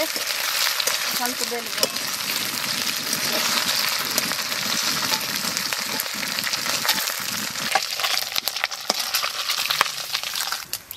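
Hilsa fish heads frying in hot mustard oil in an aluminium wok: a steady sizzle, with the metal spatula scraping and clicking against the pan as the pieces are stirred and lifted out. The sizzle drops away near the end.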